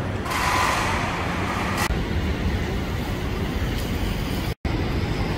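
Road traffic on a rain-wet city street: a steady low rumble of passing cars and buses, with a hiss lasting about a second and a half just after the start. The sound cuts out for a split second near the end.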